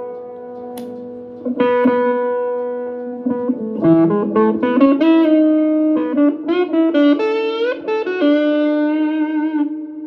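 Clean Les Paul-style electric guitar. A strummed chord rings out about a second and a half in, then a single-note lead phrase follows with string bends, ending on a held note with vibrato.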